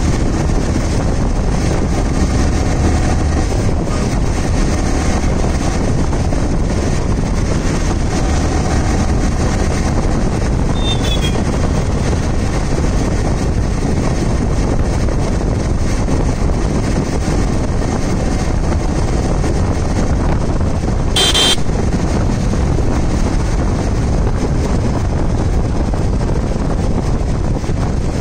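Yamaha R15 V3's 155 cc single-cylinder engine running steadily in sixth gear at cruising speed, under a constant rush of wind and road noise. A brief horn beep sounds about three quarters of the way through.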